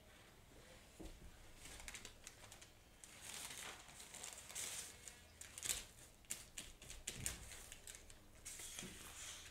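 Sheets of paper rustling and crinkling as they are handled, in short irregular bursts with small clicks.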